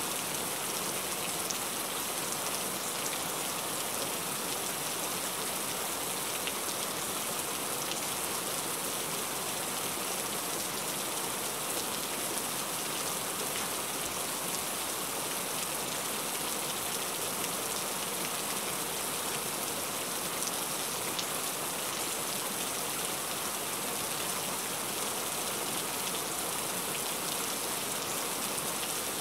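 Steady rain pattering on a car's roof and windshield, heard from inside the cabin, with now and then a sharper drop ticking.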